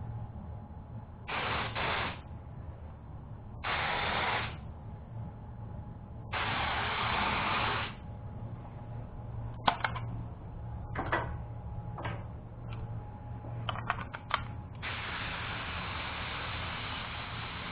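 Compressed-air paint spray gun hissing in short passes of a second or so, three times, with a run of clicks and rattles between. Near the end a longer, steady spray sets in.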